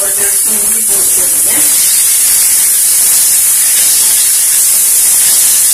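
Chopped onions and ginger-garlic paste sizzling in hot oil in a steel kadai as they are stirred with a spatula: a steady, loud hiss.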